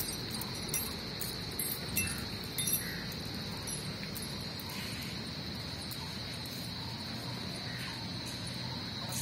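Insects droning steadily at one high pitch, with a few faint clicks and short chirps in the first three seconds.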